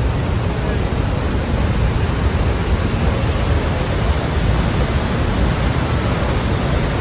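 Niagara Falls roaring at close range: a loud, steady rush of heavy falling water, deep and unbroken.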